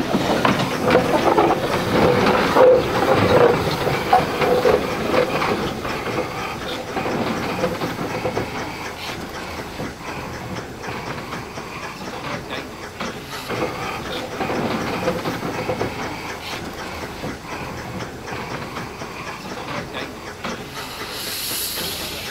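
Steam hissing from a Darjeeling Himalayan Railway B-class narrow-gauge steam locomotive as it works with its train. It is loudest in the first few seconds and then eases, and there is a brief sharper, higher hiss near the end.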